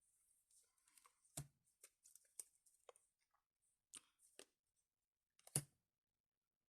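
Faint rustling and light clicks of trading-card packaging and cards being handled, with a sharper knock about a second and a half in and another near the end.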